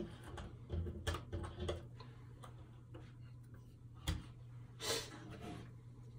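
Paperboard jigsaw puzzle pieces being handled on a hard tabletop: scattered light clicks and slides as pieces are picked up, set down and pressed together, with a few sharper taps about a second in and around four to five seconds in.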